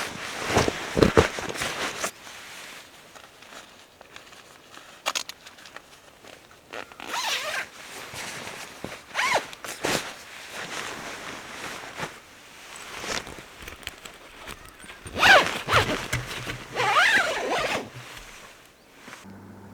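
Zippers being pulled open and shut in a series of quick swishing strokes, the loudest near the end.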